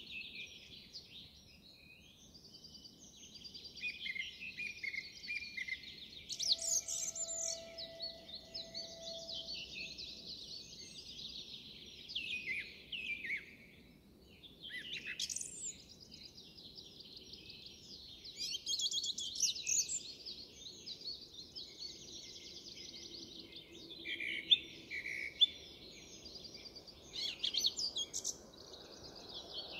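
Song thrush singing: a steady run of varied, high-pitched phrases broken by a few brief pauses.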